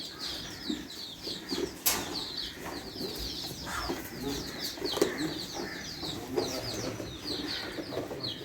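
Many small birds chirping busily and without pause, with lower clucking calls of chickens and a few sharp knocks.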